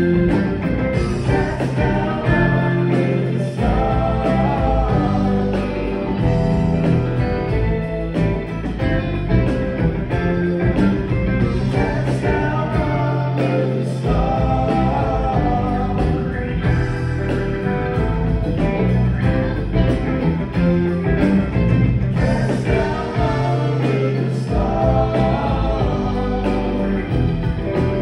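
Live rock band playing a song with a lead vocalist singing over electric guitar, bass guitar, drums, organ and keyboards, heard from the audience in a concert hall.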